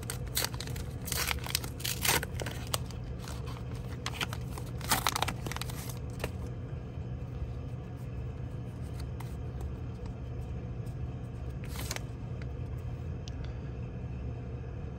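A Pokémon card pack wrapper being torn open and crinkled for the first several seconds, then the cards inside being handled with only occasional faint ticks, over a low steady hum.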